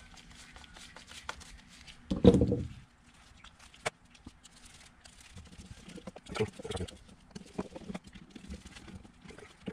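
Workshop handling noises as a carburetor and a screwdriver are worked on a wooden workbench: scattered clicks and knocks, with a dull thump about two seconds in and a short run of knocks around six to seven seconds in.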